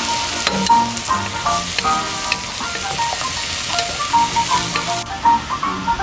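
A dense sizzling hiss that starts suddenly and cuts off about five seconds in, over background music.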